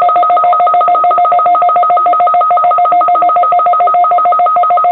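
A loud, rapid string of touch-tone (DTMF) beeps at about eight a second, each beep the two-pitch pair of the keypad's '1' key.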